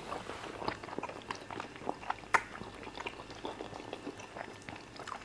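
Close-miked eating sounds of fufu with soup and chicken eaten by hand: soft wet chewing and lip smacks with scattered small clicks, one sharper click about two seconds in.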